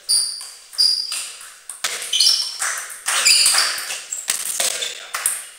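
Table tennis rally: the celluloid ball clicking sharply off the bats and the table, about eight hits at half-second to one-second spacing, several followed by a brief high ring.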